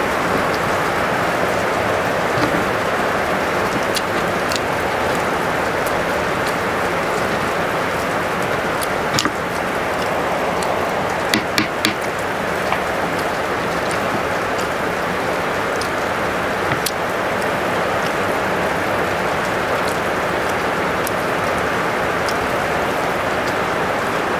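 A steady, even rushing noise, with a few sharp clicks and clacks from eating by hand: a cluster of the loudest comes about eleven to twelve seconds in as a mussel shell is handled.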